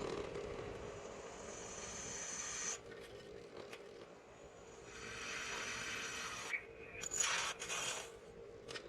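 Electric drill boring holes in sheet metal: a rough, rasping cutting noise in several runs, each stopping abruptly as the bit breaks through or is lifted, over a steady hum.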